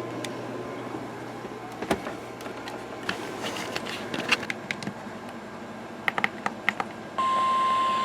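Low background hiss with scattered faint clicks, then about seven seconds in a steady single-pitch tone starts and holds: the NOAA Weather Radio 1050 Hz warning alarm tone that marks the start of a new alert broadcast.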